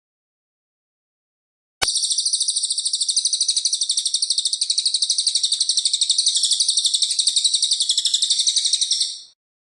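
Silent for the first two seconds, then a click and a small songbird's single long trill, very fast and high-pitched, lasting about seven seconds and fading out near the end.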